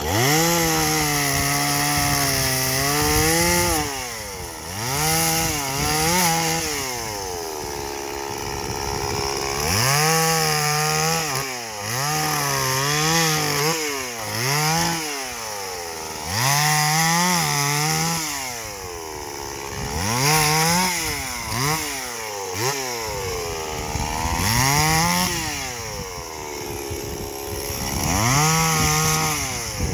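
Stihl two-stroke chainsaw being revved to full throttle in short bursts of a second or two and dropped back to idle between them, about nine times, while cutting brush.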